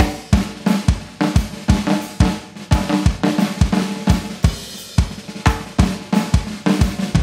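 Band instrumental intro led by a drum kit playing a steady beat, kick and snare hits about two a second with cymbals, over a pitched bass and keys part. A fuller band sound with held low notes comes in right at the end.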